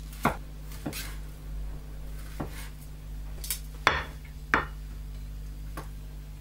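Chef's knife knocking on a wooden cutting board as a fried sausage is cut into slices, with sharp knocks at irregular intervals. Metal tongs and a ceramic plate clatter on the board, the loudest knock about four seconds in.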